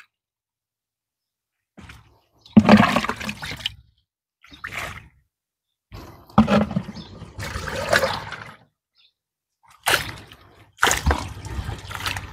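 Liquid poured from a plastic dipper onto the potting soil of a mai vàng tree, a fungicide and root-stimulant drench, in several separate splashing gushes that start about two seconds in.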